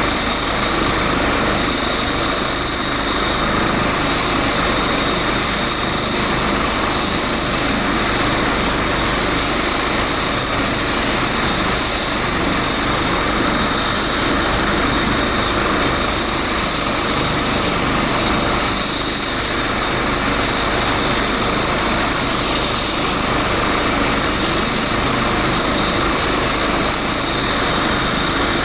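Eurocopter EC135 twin-turbine helicopter running, a loud, steady turbine and rotor noise with a high hiss that holds unchanged throughout.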